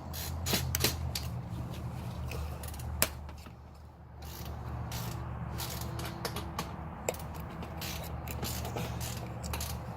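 Handling noise of something being worked loose and pulled off by hand: a string of irregular clicks, knocks and scrapes over a steady low hum.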